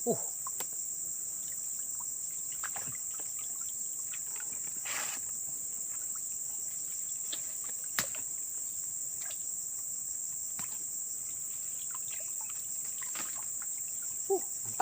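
Steady high-pitched chorus of crickets and other insects, with scattered faint clicks, a sharp click about 8 seconds in and a brief rustle about 5 seconds in.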